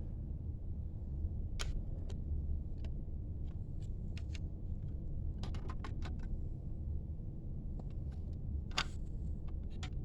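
Scattered light clicks and taps of small hard objects being handled, with a quick cluster past the middle and a louder click near the end, over a steady low rumble.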